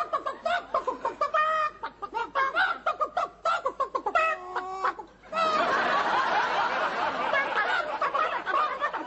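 Human voices imitating chickens, short choppy clucks and squawks used in place of speech. About five seconds in, a studio audience bursts into sustained laughter.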